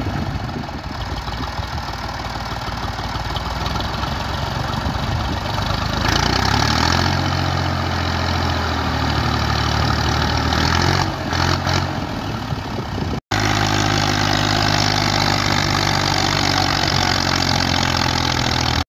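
Massey Ferguson 240 tractor's three-cylinder diesel engine working under heavy load as it tries to haul a loaded sugarcane trolley out of soft ground where it is stuck. The revs rise about six seconds in and stay up, and there is a momentary break just after the middle.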